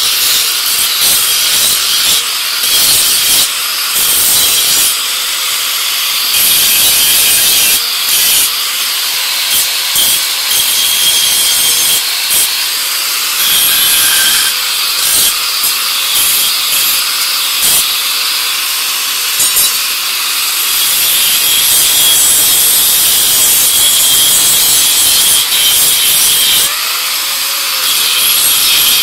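Handheld angle grinder's abrasive disc grinding the edge of a leaf-spring steel knife blank: a continuous, harsh hiss over a faint motor whine, its loudness dipping briefly now and then.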